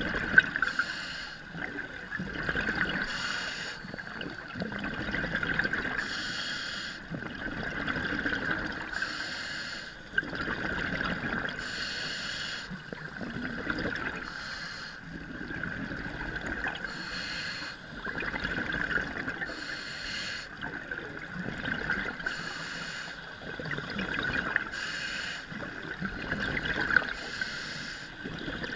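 Scuba diver breathing through a regulator underwater: a hiss comes about every two and a half seconds, with bubbling and gurgling exhalations between, over a steady high hum.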